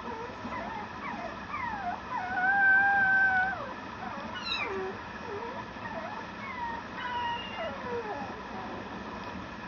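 Mame shiba puppy whining and whimpering in a string of short cries that slide up and down in pitch, with one longer, steadier whine about two seconds in that is the loudest.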